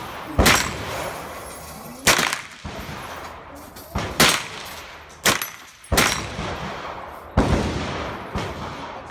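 Gunshots: about seven sharp reports at irregular spacing, two of them in quick succession a little after the middle, each followed by a brief echo.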